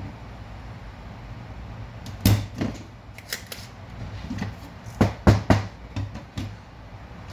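Spring-loaded solder sucker (desoldering pump) clicking and snapping as it is cocked and fired to clear solder from circuit-board through-holes, in two clusters of sharp clicks about two and five seconds in, over a low steady hum.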